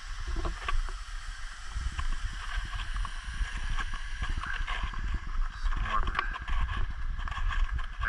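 Footsteps crunching in snow, with irregular knocks from a hand-held camera, over a steady rush of water and a low rumble of wind on the microphone.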